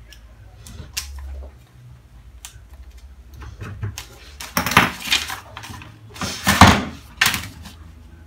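Kraft pattern paper being handled and cut on a table: light clicks and scrapes at first, then three loud rustles of the paper in the second half.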